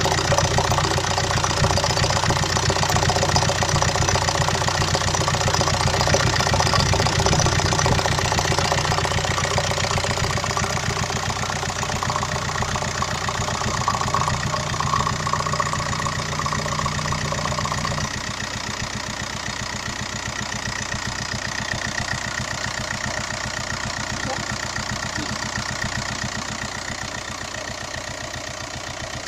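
1.9 TDI BXE four-cylinder pumpe-düse diesel engine idling with a fast, even knocking, the noise and knock that the owner places in the intake. About two-thirds of the way through it becomes somewhat quieter and less deep.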